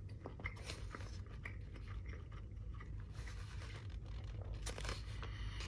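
Faint scraping and clicking of a plastic spoon scooping fried rice in a paper takeout box, with soft chewing, over a steady low hum.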